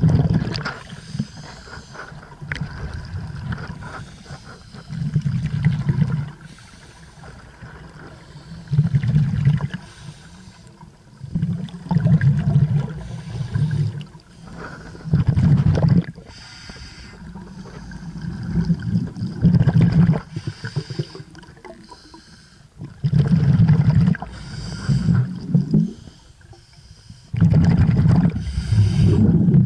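Scuba regulator breathing underwater: low bubbling rumbles of exhaled air come every few seconds, with quieter stretches between breaths.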